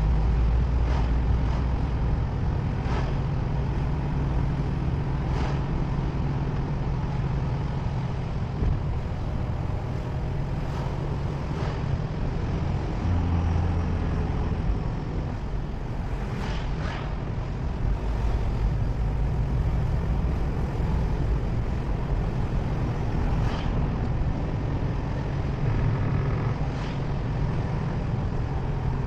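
A car driving: steady low rumble of engine and road noise, with short sharp ticks now and then.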